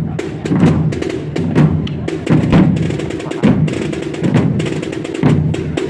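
Procession drum band playing a steady marching beat. Fast, crisp strokes fill the gaps between heavy low accents, which fall about once a second.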